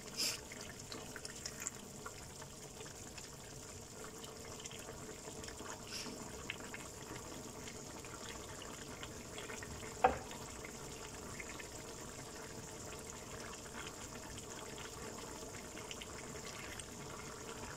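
Chicken afritada's tomato sauce bubbling at a steady boil in a frying pan, reducing down, with small scattered pops. A single sharp knock comes about ten seconds in.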